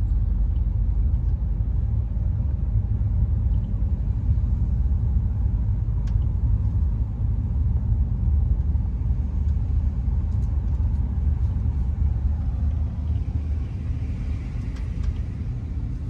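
Car driving at low speed, heard from inside the cabin: a steady low rumble of engine and tyres on the road.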